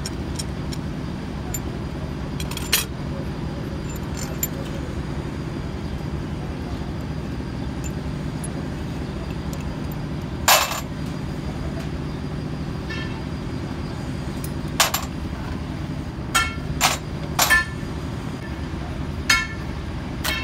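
Steel hand tools clinking against a Hino 1J engine's cylinder head: sharp metallic clinks, several with a short ring, a few spread out and then a quick run of them in the last few seconds. A steady low mechanical drone runs underneath.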